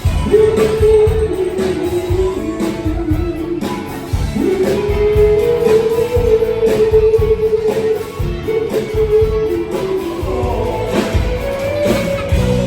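Music: a singer holding long notes over guitar and a steady beat.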